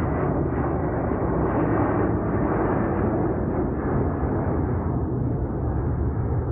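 Jet airliner taking off close overhead with its engines at full thrust: a loud, steady rumble that eases slightly near the end.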